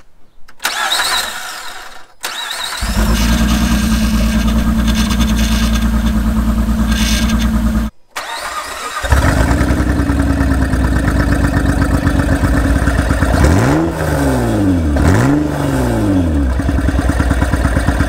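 2006 Honda Pilot's 3.5-litre V6 starting up and running loud with its exhaust pipe missing underneath the car. It runs steadily and is revved up and back down twice in quick succession near the end.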